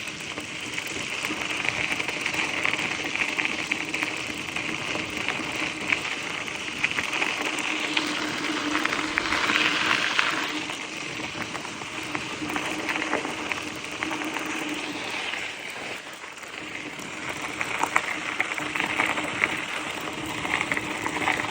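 Bicycle tyres rolling over a rough surface: a steady crackling hiss with many small clicks from grit under the tyres and a faint steady hum beneath.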